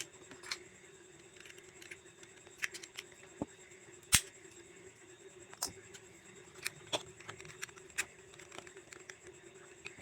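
Scattered light clicks and taps of small plastic parts and tools being handled as a true-wireless earbud is taken apart, the sharpest about four seconds in. A faint steady hum runs underneath.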